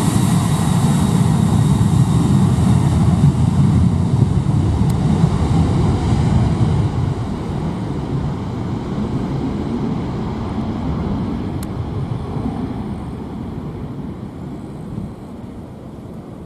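Jet airliner's engine noise, a loud rumble with a faint whine, fading steadily as the aircraft moves away.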